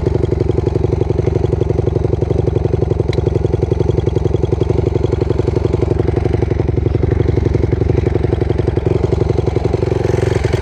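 Honda CR125 single-cylinder two-stroke dirt bike engine idling steadily at an even pitch, heard close up.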